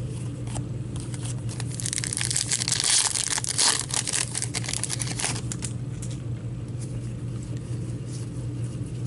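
Foil wrapper of a hockey trading-card pack crinkling and tearing as it is opened by hand, from about two seconds in until about five and a half seconds, over a steady low hum.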